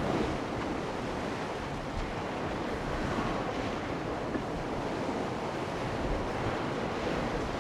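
Steady wash of wind and open-sea waves, an even rushing noise with no distinct events.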